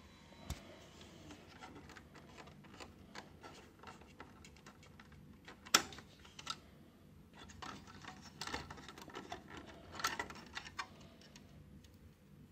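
Small plastic clicks and scrapes of fingers working a small wire plug loose from its socket on a circuit board, with one sharper click about six seconds in and a busier run of clicks a few seconds later.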